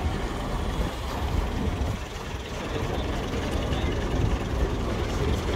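Leyland Panther bus's diesel engine running as the bus moves off at low speed across the yard, a steady low rumble that grows slightly louder about halfway through.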